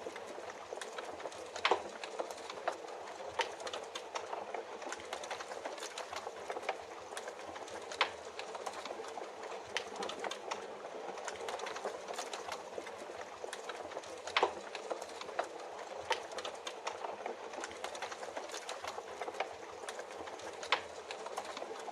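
Wood fire crackling with irregular sharp pops, a few of them loud, over a steady hiss of rain.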